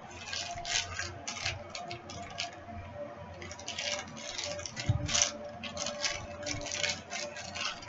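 Toy packaging and a small plastic figure being handled by hand: irregular rustles and light clicks of cardboard and plastic, coming every fraction of a second.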